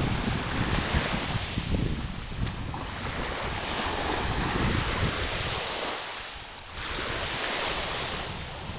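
Small sea waves washing onto a sandy shingle shore, with gusting wind buffeting the microphone; the wind drops out briefly about six seconds in.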